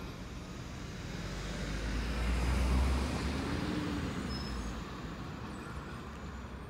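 A car passing close by, its tyre and engine noise swelling to a peak about halfway through and then fading as it drives off down the street.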